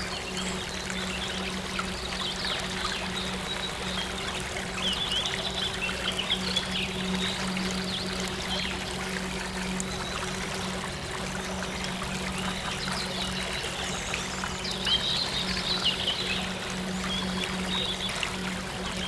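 Running water of a stream, pouring and trickling steadily, under a steady low drone. Short high chirps come in two clusters, a few seconds in and again past the middle.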